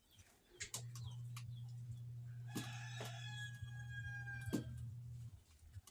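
A rooster crowing once, a single long crow of about two seconds starting about two and a half seconds in, over a steady low hum.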